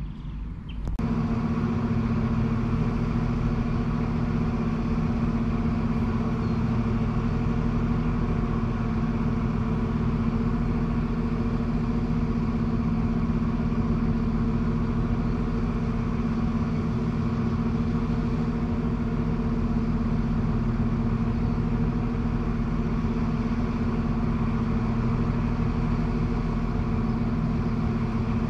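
A steady mechanical hum that starts suddenly about a second in and then holds one even pitch and level, with several clear tones stacked above a low rumble.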